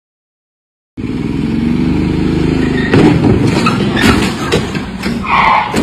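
Golf cart engine running loud and rough, starting about a second in, then turning uneven with sharp cracks from about halfway through.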